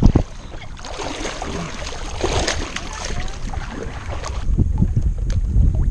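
Hobie kayak paddle strokes splashing in choppy sea water, with wind buffeting the microphone. A hard knock right at the start.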